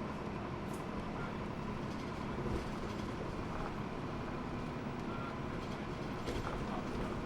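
Cabin of a Hino Blue Ribbon II diesel city bus under way: steady engine drone and road noise, with a couple of brief light rattles.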